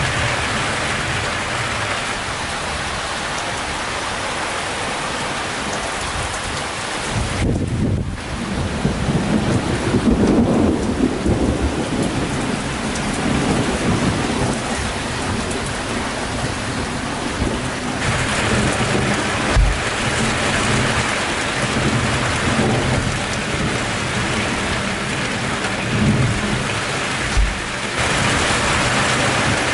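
Summer thunderstorm: steady rain falling, with a long rumble of thunder starting about seven seconds in and a couple of short low thumps later on.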